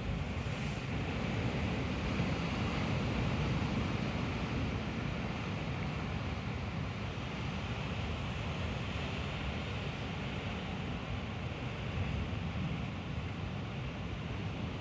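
Rough sea surf breaking and washing against rocky cliffs, a steady rush of water with a low rumble, mixed with wind buffeting the microphone.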